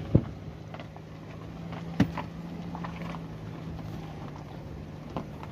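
Steady drone of a car's engine and road noise heard inside the moving vehicle, with two sharp knocks, one at the start and one about two seconds in.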